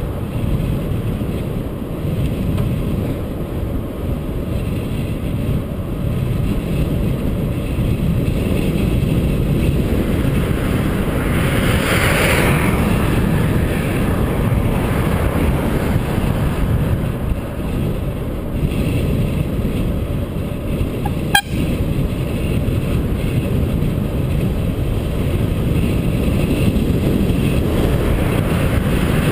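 Wind buffeting a bike-mounted camera's microphone while cycling along a highway, a steady low rumble. A car passes about twelve seconds in, and a single sharp click comes a little past twenty seconds.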